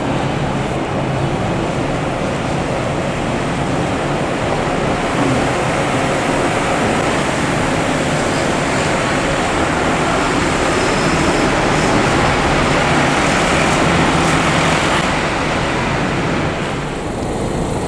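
Steady road-vehicle noise: a low engine hum under a wide rushing tyre-and-road noise, swelling a little after the middle and easing off near the end.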